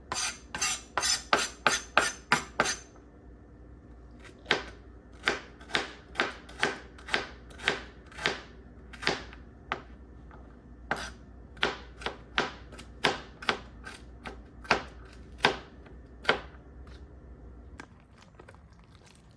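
Kitchen knife mincing fresh ginger, the blade striking the cutting board. First comes a quick run of chops, then slower single chops about twice a second.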